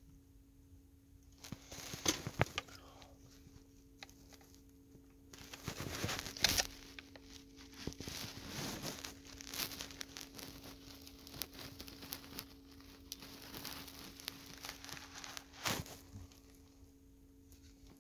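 Rustling and handling noises with several sharp clicks, loudest about two seconds in, again a few seconds later and once near the end: hands working a plastic shift-paddle extension with its adhesive tape onto a car's steering-wheel paddle, and moving the recording phone. A steady low hum runs underneath.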